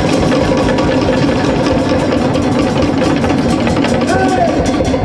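Music carried by a fast, even drum roll of about ten strokes a second, with a steady low tone sounding beneath it.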